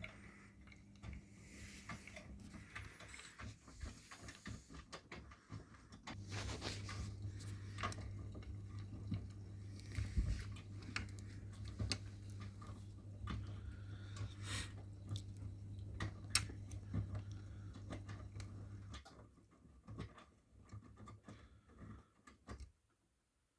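Miele front-loading washing machine running mid-cycle, with patter and scattered clicks. A steady low hum starts about six seconds in and stops around nineteen seconds. All sound cuts off abruptly near the end.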